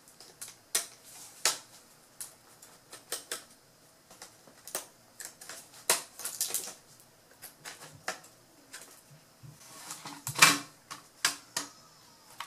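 Scattered, irregular clicks and knocks of a screwdriver and fingers on a laptop's plastic underside as the memory module and Wi-Fi card are removed, with the loudest knocks about ten seconds in.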